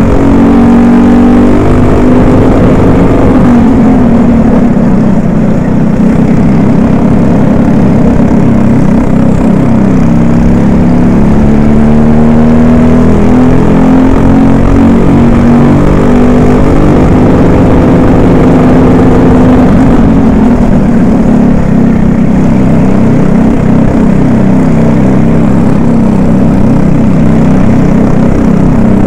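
Racing kart engine close to the microphone, its pitch climbing on the straights and dropping off for the corners again and again, with a second kart's engine running close by.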